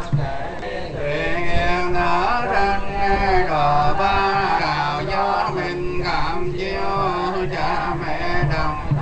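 Buddhist monks chanting a sutra together in slow, melodic intoning with long held notes, and a low repeating beat underneath at times.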